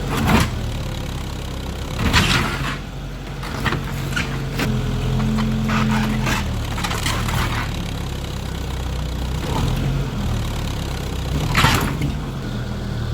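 1960s Ford backhoe's engine running steadily while the wood framing of a house cracks and splinters under the bucket, with several sharp cracks, the loudest about half a second in, about two seconds in, and near the end.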